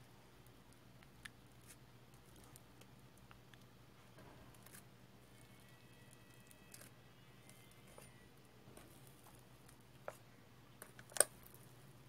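Thick white slime pressed and scooped with a plastic spoon: faint sticky crackles and small pops. A sharper pop comes about ten seconds in and the loudest one just after.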